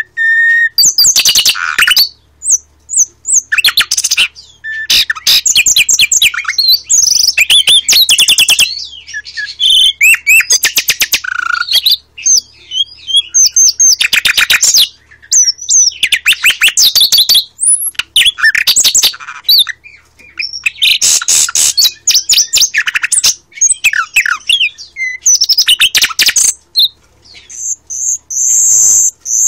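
Caged nightingale singing at close range: a string of loud song phrases, each a rapid run of repeated notes and trills, broken by short pauses.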